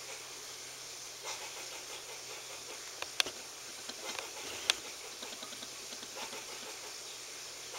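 Squirrel giving two short, sharp alarm calls about a second and a half apart, then a run of faint quick clicks, over a steady hiss.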